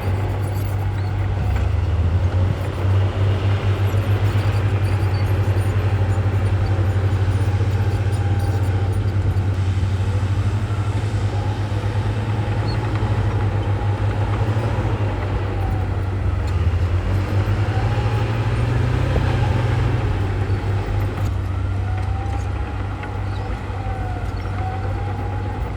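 Heavy diesel earthmoving machinery running under steady load, a deep continuous engine drone, with a higher whine that rises and falls several times in the second half.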